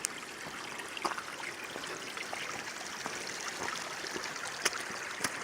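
Steady rushing of running water, like a stream, with a few faint sharp clicks about a second in and near the end. No snoring or other rhythmic breathing is heard.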